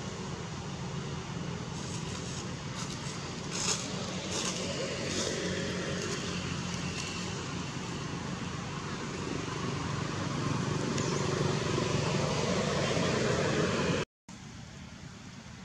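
Outdoor background noise: a steady rumble like distant road traffic, with faint voices mixed in. It grows louder over several seconds, then cuts off suddenly near the end and comes back quieter.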